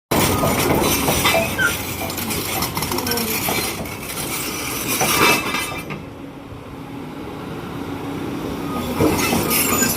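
Hyundai R310 crawler excavator working, with a steady mechanical noise and frequent metallic clanks and squeaks. It quietens for a few seconds in the middle to a low steady hum, then picks up again near the end.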